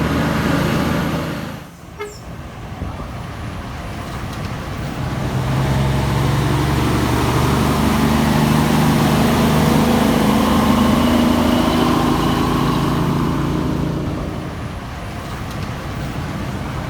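Kenworth T800 truck's diesel engine running, heard from inside the cab; it drops off sharply about two seconds in, then builds back up and holds a steady drone before easing slightly near the end.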